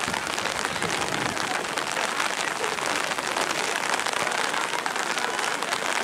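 Heavy rain falling steadily, a dense even patter of drops.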